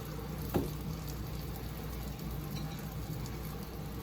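Veggie sausage sizzling steadily in a frying pan, with one light knock about half a second in.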